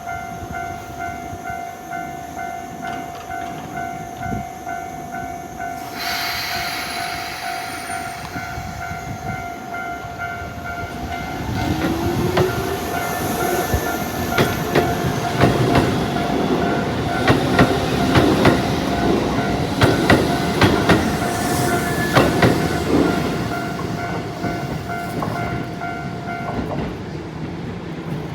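A level crossing warning bell rings in a steady, evenly repeating pattern while a Shibayama Railway 3500-series electric train passes through. The train's wheels clack in quick, regular beats over the rail joints, loudest in the middle. The bell stops shortly before the end.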